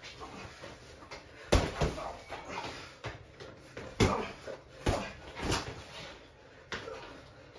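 Boxing-glove punches landing on gloves and guard during sparring: several sharp smacks at an uneven pace, the loudest about one and a half seconds in and about four seconds in.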